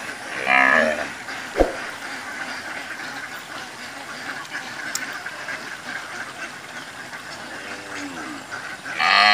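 A flock of domestic ducks quacking and chattering steadily. A loud quack comes about half a second in and another near the end, with softer calls just before it, and a single sharp click sounds about one and a half seconds in.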